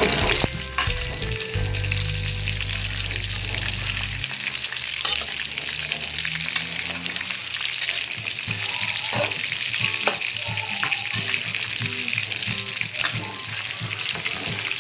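Pork belly pieces frying in their own rendered fat in an aluminium wok: a steady sizzle, with a metal spatula scraping and clicking against the pan now and then as the pork is stirred and browned.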